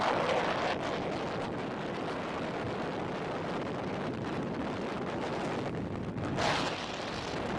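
Wind buffeting the microphone on the open deck of a ship underway: a steady rush, with stronger gusts near the start and about six and a half seconds in.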